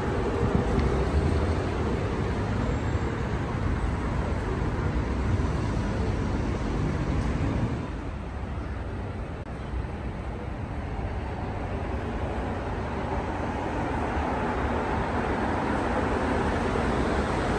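Steady city street traffic noise: a low, continuous rumble of passing vehicles with no distinct events. It drops somewhat about eight seconds in and builds back up over the following seconds.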